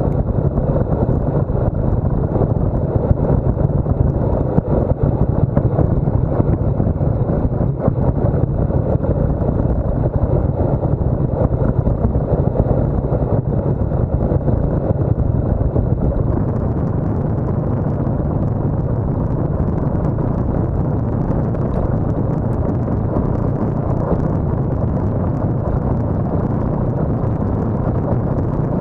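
Wind rushing over the microphone of a handlebar-mounted camera on a road bike ridden at speed: a loud, steady noise that is gustier in the first half and evens out after about sixteen seconds.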